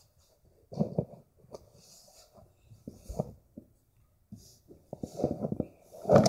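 Soft knocks and rustling handling noises in a few short clusters, the loudest knock at the very end.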